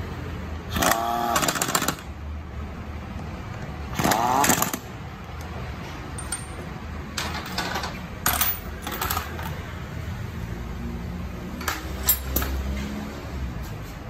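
Impact wrench running bolts on a scooter's transmission (CVT) cover in two short bursts, the first about a second in and the second about four seconds in, its pitch bending as it spins. Lighter metal clicks and knocks of tool handling follow in the second half.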